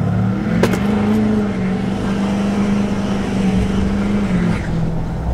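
Tuned Duramax turbo-diesel V8 of a Chevy Silverado 2500 pulling hard on a launch, heard from inside the cab. The engine's pitch climbs, then holds steady. There is a sharp click about half a second in, and the pitch drops near the end.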